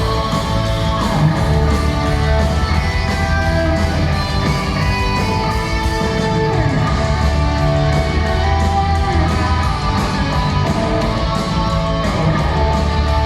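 Heavy metal band playing an instrumental passage: electric guitars over a fast, steady drum beat.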